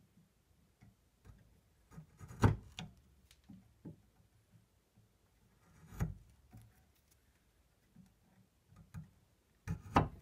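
Sharp chisel pushed down by hand, paring end grain off a wooden tenon to round its curve: scattered light cuts and ticks, with a few sharper clicks, the loudest a couple of seconds in, others around the middle and near the end.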